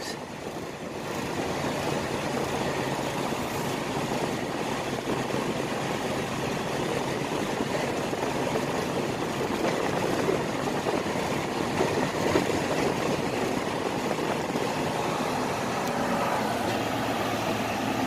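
Diesel engine and road noise of a loaded semi-truck, heard from inside the cab as it drives off and turns onto a highway. It is a steady running sound that comes up about a second in and then holds even.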